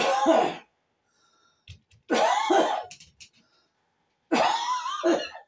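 A person coughing loudly in three harsh bouts about two seconds apart, part of a lingering coughing fit.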